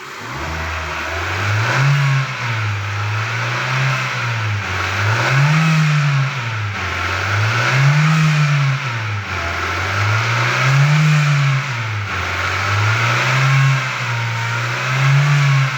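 2016 Hyundai Elantra engine, fan belt removed, being revved up and let fall back about every two to three seconds, with a humming whine that rises and falls with engine speed. Because the noise is still there with the belt off, the mechanic is sure it comes from inside the engine and suspects the oil pump, perhaps a clogged strainer starving it of oil.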